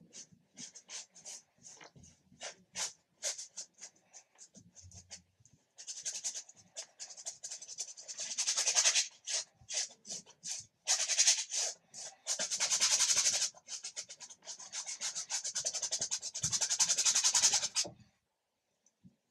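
Paintbrush scrubbing acrylic paint onto canvas with a scratchy rubbing sound. The first strokes are short and separate. From about six seconds in come longer runs of rapid back-and-forth strokes, and these stop shortly before the end.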